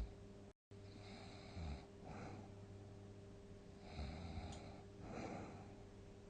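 A sleeping person snoring: a short snort about one and a half seconds in, then breaths with a rasping snore around four and five seconds in, over a steady low electrical hum.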